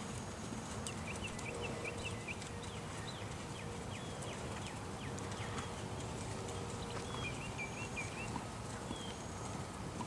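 Thoroughbred gelding's hoofbeats on sand arena footing as it canters. Birds chirp in short runs of quick notes early on and again near the end.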